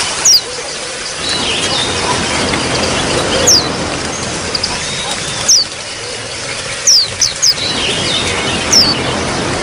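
Water trickling steadily, with about seven sharp, high, downward-sliding chirps of white-eyes (pleci) over it, three of them in quick succession about seven seconds in.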